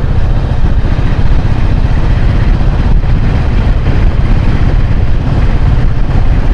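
A moving vehicle's loud, steady low rumble.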